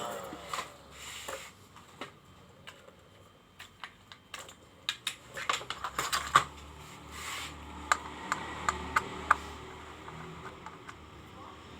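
A steady humming tone cuts off with a sharp click, then scattered clicks and taps follow: a quick cluster about five to six seconds in, and five evenly spaced clicks, a little under half a second apart, near the end.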